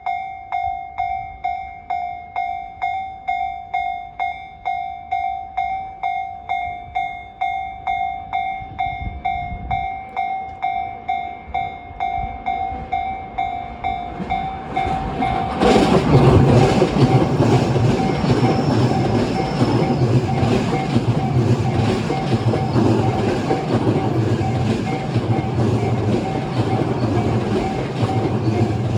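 Japanese level-crossing warning bell ringing about twice a second. About 15 seconds in, a Tobu 50000-series electric train passes through, loud, its wheels clacking over the rail joints, with the crossing bell still ringing under it.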